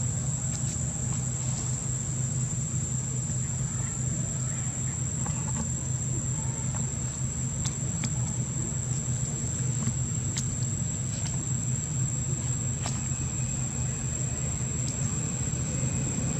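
Outdoor ambience: a steady low rumble with a continuous thin, high insect drone over it, and a few faint clicks.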